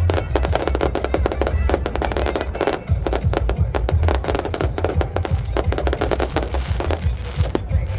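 Fireworks going off in rapid, dense volleys of cracks and pops, many per second, over loud music with a heavy bass.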